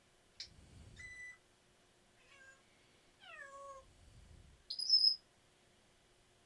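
Pet parrot calling: a short chirp, a held whistled note, a few falling calls, then a loud high whistle about five seconds in.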